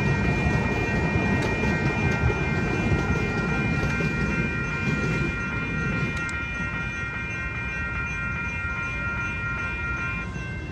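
An MTS light-rail trolley rolls past a railroad crossing with a low rumble that fades about six seconds in, while the crossing's warning bell rings steadily over it. The bell stops shortly before the end as the crossing clears.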